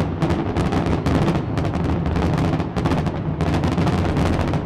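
Aerial fireworks shells bursting in rapid succession: a dense, unbroken barrage of loud bangs, several a second, over a low rumble.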